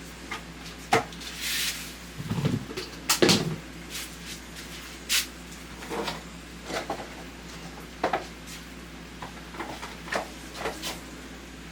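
Scattered knocks, clicks and rustling of things being handled, with two heavier thumps a little over two and three seconds in.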